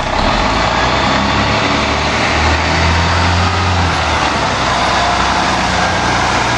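Fire engine (1994 Spartan Gladiator pumper) moving off from a stop and passing close by. Its engine gets louder about two seconds in and then eases off, over a steady hiss from the wet road.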